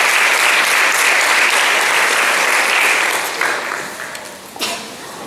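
Audience applauding, dying away between about three and four and a half seconds in, with a single sharp knock near the end.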